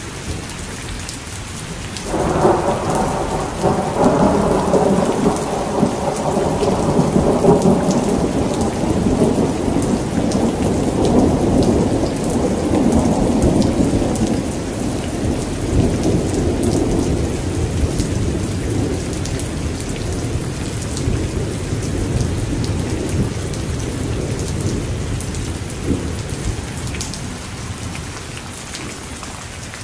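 Heavy rain falling steadily. About two seconds in, a long peal of thunder breaks in suddenly and slowly fades away over some twenty seconds while the rain carries on.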